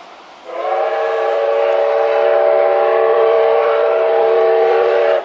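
Steam locomotive whistle, D51 498's, blown in one long blast of several tones at once. It comes on about half a second in, holds steady and cuts off sharply near the end.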